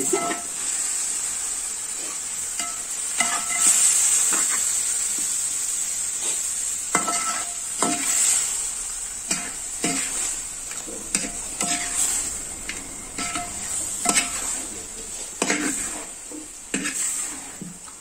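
A long metal ladle stirring and scraping chunks of meat curry in a large metal pot while the masala sizzles steadily. The ladle knocks and scrapes against the pot at irregular moments, some knocks with a short metallic ring.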